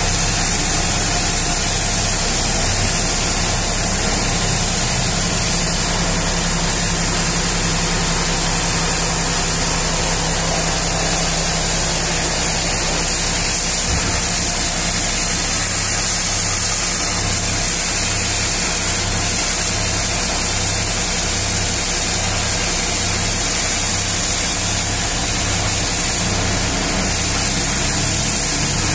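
High-pressure washer jet spraying hard against a mining haul truck's tyre and wheel well, a steady hiss, over the steady drone of an engine with a low hum that pulses about once a second.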